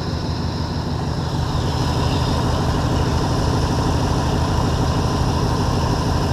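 1952 Mercury's flathead V8 running at a steady fast idle; the fast idle cam needs a little setting. It gets slightly louder about a second and a half in.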